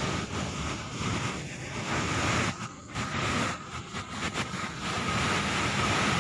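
Steady rushing of floodwater pouring into a sinkhole, dipping briefly in loudness twice near the middle, with a faint steady high tone underneath.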